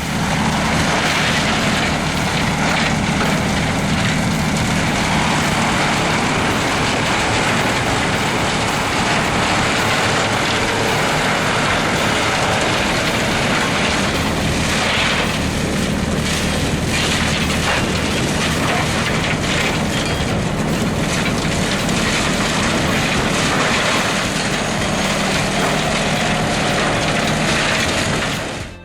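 Forestry mulcher running steadily under load: its engine's drone under the loud, even noise of the high-speed cutter drum shredding old grapevines. It cuts off abruptly at the very end.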